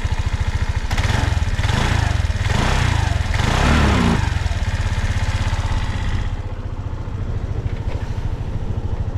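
Suzuki Address V125S scooter's single-cylinder four-stroke engine idling, then revved in several short throttle blips before settling back to a steady idle; the seller describes it as running with no abnormal noises.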